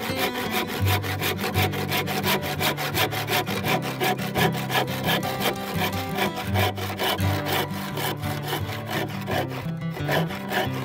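Irwin Marathon handsaw cutting through a round hickory sledgehammer handle in quick, even back-and-forth strokes.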